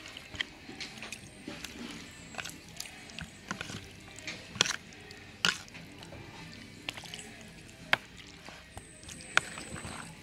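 Spoon stirring chunks of marinated pork in a bowl: wet squelching with scattered clicks of the spoon against the bowl, a few sharper and louder from the middle on.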